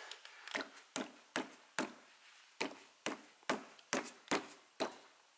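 About a dozen sharp knocks on a 2006 Dodge Charger Daytona's automatic transmission oil pan, each with a short ring. Struck like this, the pan answers with a hollow 'bul, bul, bul', like a rumbling stomach.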